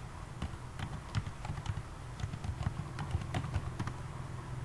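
Typing on a computer keyboard: a string of irregular key clicks that stops shortly before the end, over a steady low hum.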